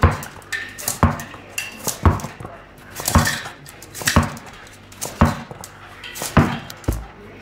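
A tennis ball bouncing on a hard kitchen floor, with sharp knocks about once a second while a terrier chases it.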